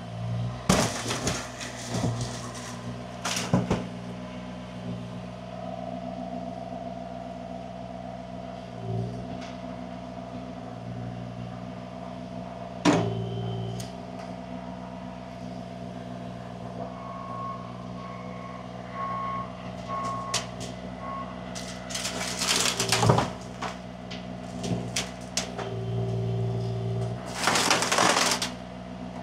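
Engine of heavy equipment running steadily, broken by loud clattering bangs of debris being struck or dropped and by bursts of heavier engine load. A short run of about five reversing-alarm beeps comes around the middle.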